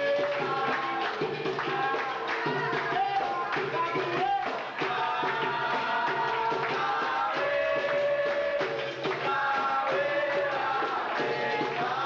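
Capoeira roda music: voices singing together over steady rhythmic hand-clapping and percussion.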